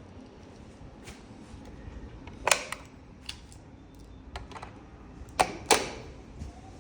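A series of sharp mechanical clicks and knocks, the loudest about two and a half seconds in and a pair near five and a half seconds. Near the end a fire alarm sounder's rising wail begins, faintly.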